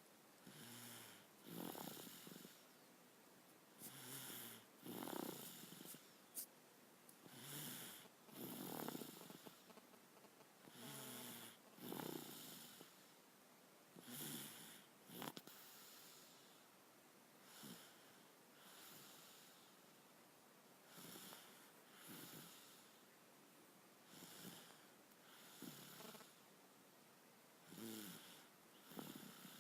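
Faint snoring from someone asleep. It comes as slow, regular breaths, about one every three seconds, each heard as a pair of rasping snores with quiet gaps between.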